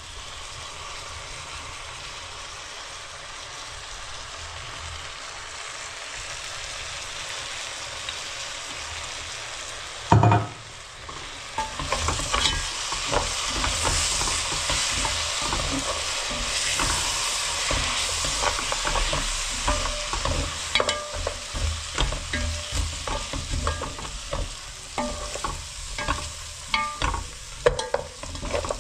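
A spiced mixture with soy sauce sizzling as it fries in a pan. About ten seconds in there is a loud knock, after which the sizzle gets louder, and from about twenty seconds a utensil clicks and scrapes against the pan as the food is stirred.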